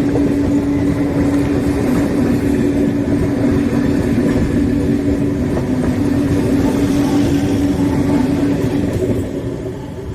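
Train horn held in one long steady note over the rumble of the train, dying away about nine seconds in.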